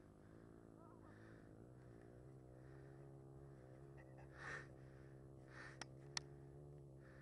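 Near silence under a faint steady low hum, with a short breathy hiss about halfway through and two sharp clicks around six seconds in.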